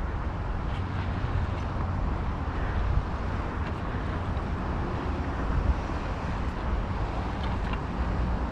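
Steady low rumble of wind buffeting the microphone, with a few faint scattered clicks and scuffs from bicycles being pushed up a steep dirt trail.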